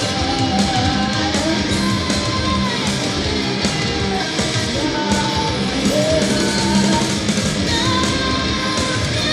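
A loud, continuous heavy-metal band jam with distorted electric guitar. A sliding, wavering high melodic line runs over the top.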